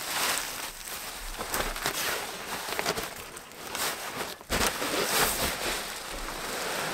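Sleeping bag cover and inflatable sleeping pad rustling and scraping over dirt and dry needles as they are handled and pushed into place, in an irregular run of rustles with a short lull about four and a half seconds in.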